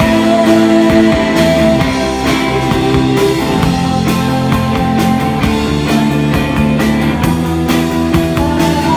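Live rock band playing: electric guitar and drum kit, with steady drum and cymbal hits and a woman singing.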